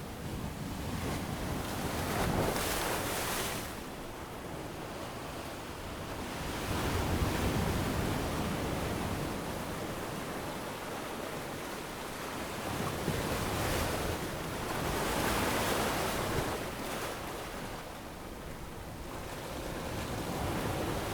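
Surf on a sandy beach: waves break and wash in one after another, the rush swelling and fading every five or six seconds.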